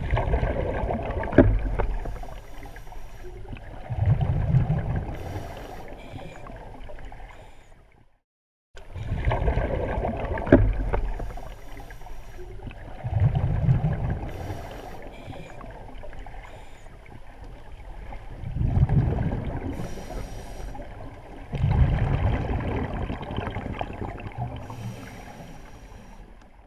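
Rushing water ambience, like waves surging, rising and falling in slow swells every few seconds. It cuts out briefly about eight seconds in and starts again.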